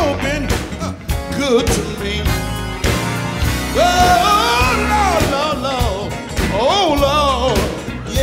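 A man singing lead into a microphone with a live band of drums and electric bass. His voice slides and bends through the melody, with a long held note about four seconds in.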